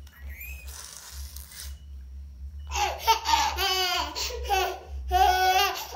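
Baby laughing: two long spells of high, wavering laughter from about halfway in, after a couple of seconds of soft breathy sounds.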